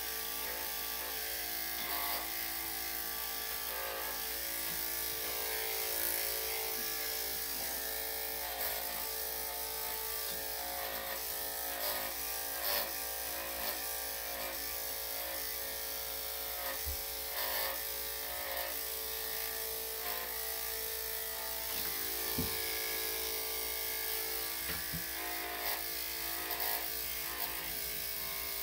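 Corded electric dog clippers fitted with a #7 blade, running with a steady buzz as they shave a small dog's coat, with scattered short clicks as the blade works through the fur.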